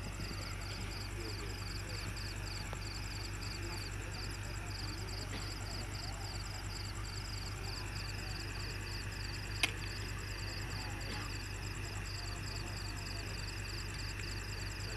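Steady low hum of a running engine from the floodlit crane work, under insects chirping in rapid, even pulses, about three a second. A single sharp click comes near the end of the second third.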